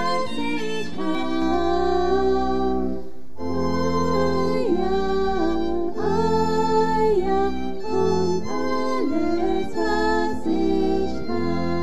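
Church music: sustained organ chords with deep bass notes under a solo melody with vibrato, played in phrases of about two seconds.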